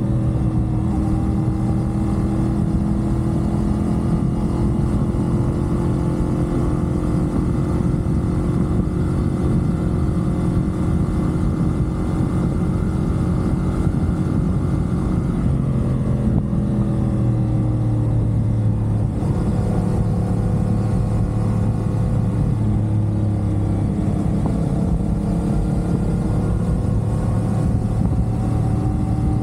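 CFMoto 450SR's parallel-twin engine running at expressway speed, heard from on the bike over steady wind and road rush. Its pitch dips and climbs again a little past halfway, and shifts once more later on.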